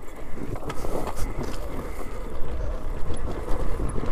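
An Alta Redshift MXR electric dirt bike rolling down a steep dirt track: its tyres crunch over dirt and rocks, and the bike gives scattered rattles and knocks.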